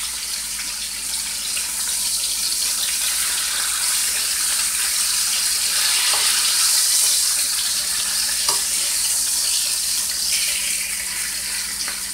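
Beef short ribs sizzling as they brown in a skillet, a steady high hiss, with a couple of faint clicks as pieces are turned over.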